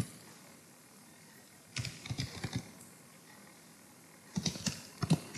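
Typing on a computer keyboard: two short runs of keystrokes, one about two seconds in and another near the end, with a pause between.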